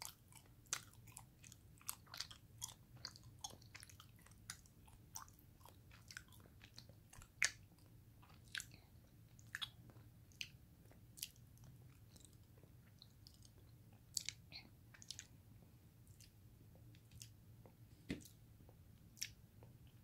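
Faint close-miked chewing of Royce nama chocolate, a soft cocoa-dusted ganache: irregular wet mouth clicks and smacks, the loudest about seven and a half seconds in.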